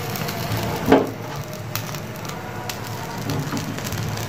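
Gas stove burner flame running steadily while the hair on a mutton trotter held in it crackles and sizzles as it singes black, with one louder crack about a second in.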